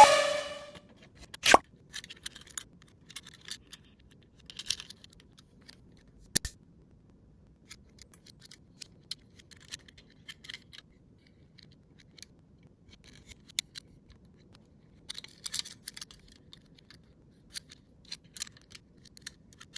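Die-cast toy car on a slope track: scattered light clicks and short scratchy rattles of its wheels and body, with two sharper clicks, one about a second and a half in and another near six seconds.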